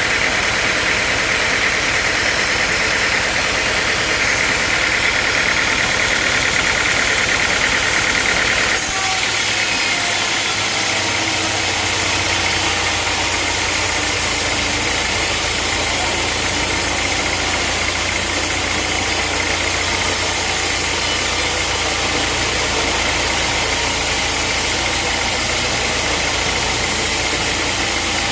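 Sawmill engine running steadily. A higher-pitched band in the sound cuts off about nine seconds in, and the engine carries on.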